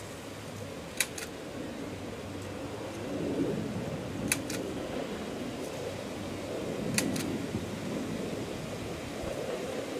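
Wind rumbling on the microphone outdoors, a little louder from about three seconds in, with three pairs of short sharp clicks.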